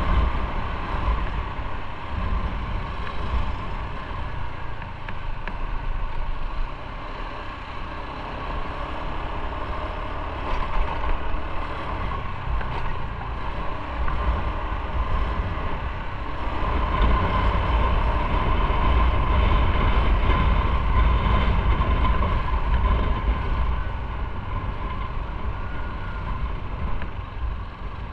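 Motorcycle on the move: engine and road noise over a low wind rumble on the microphone. It grows louder a little past halfway and eases off near the end.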